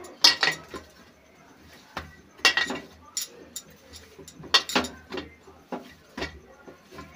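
Soft, oiled bhatura dough being kneaded and slapped down inside a glass bowl: loud knocks against the glass about every two seconds, with smaller knocks and soft squelches between.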